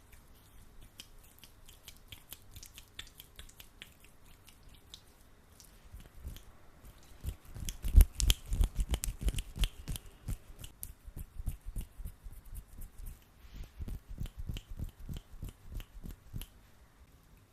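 Hands rubbing sticky aloe vera gel, making wet squelching and clicking sounds. It is sparse and faint at first, then from about halfway there is a fast, louder run of squelches that eases off near the end.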